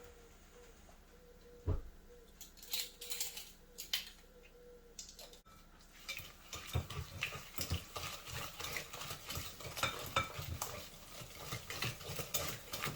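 A knock and a few clinks of utensils against a bowl. Then, from about six seconds in, a wire whisk beats the wet cookie mixture in a bowl with quick, steady clicking strokes against the sides.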